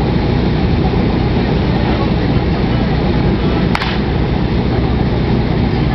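Portable fire pump engine running steadily. About four seconds in a single sharp crack sounds, the start signal, and the team sets off.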